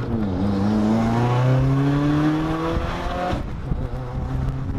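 Car engine accelerating hard: the pitch drops at a gear change right at the start, then climbs steadily for about three seconds before the revs ease off.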